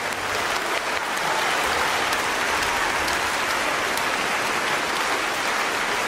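A large concert-hall audience applauding, a steady dense clapping.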